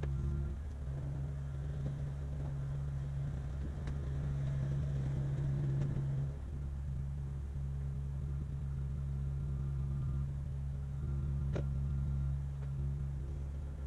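Kubota KX057-5 excavator's diesel engine running steadily, easing off briefly about six seconds in. A couple of short sharp clicks, one about four seconds in and one near the end.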